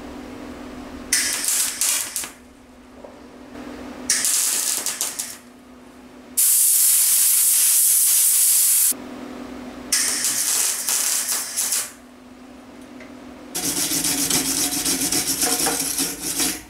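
Wire-feed welder laying beads on a steel exhaust pipe joint: five separate bursts of crackling arc hiss, each a second or more long and the middle one the longest and loudest, with a low steady hum in the pauses between them.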